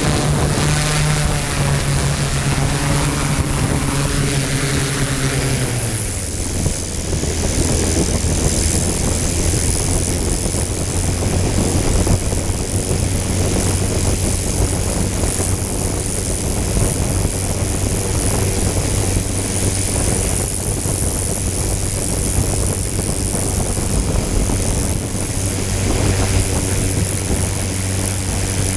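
Motors of a small radio-controlled drone humming steadily. The pitch drops about six seconds in, then holds at a lower, even hum while the craft sits on the pavement.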